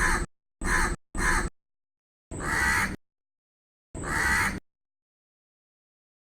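Crow cawing: three short, quick caws, then two longer, drawn-out caws about a second and a half apart.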